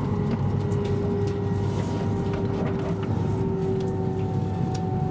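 Cabin noise of an E7 series Shinkansen running: a steady low rumble with a faint motor whine that slowly drops in pitch as the train slows for its station stop, and scattered light clicks.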